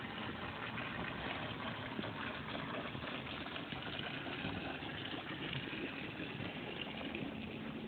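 Water pouring steadily from a stone spillway into a shallow pool: an even rushing splash with a faint low hum beneath it.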